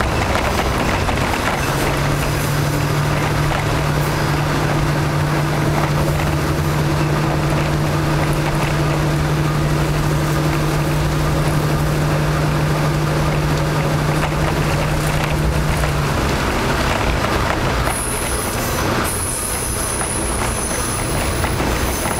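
KiHa 52 diesel railcar under way, heard on board: the steady note of its DMH17 diesel engines over the rumble of wheels on rail. The engine note stops about two-thirds of the way through and the running noise carries on. A thin high tone comes in near the end.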